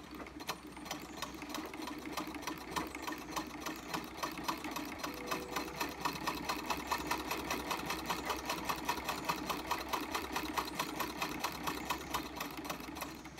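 1902 Singer 27-4 Sphinx vibrating-shuttle treadle sewing machine stitching through two layers of denim: a rapid, even clatter of needle and shuttle strokes that gathers speed over the first second or two, then holds steady.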